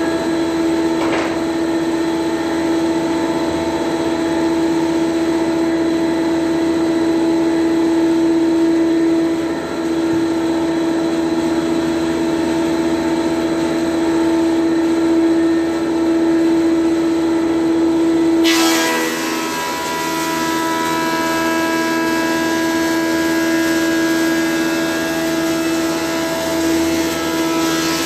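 A 500 mm (20-inch) Colombo ACS thickness planer running steadily, with a strong constant hum. About eighteen seconds in the sound abruptly turns brighter and harsher.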